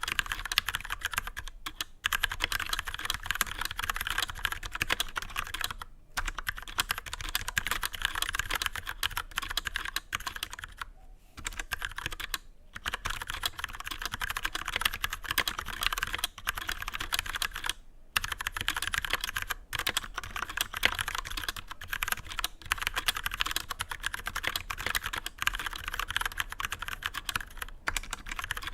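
Continuous fast typing on an Akko 3068 mechanical keyboard with undampened Cherry MX Brown switches, the keys clacking as they bottom out and spring back, with a few short pauses.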